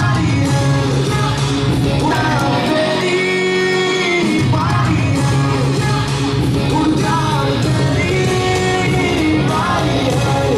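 Loud pop song with a singing voice, played over loudspeakers.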